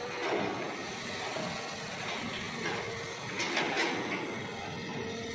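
Hitachi Zaxis long-reach excavator running steadily while working, with a few short louder bursts of noise from the machine, the strongest a little past the middle.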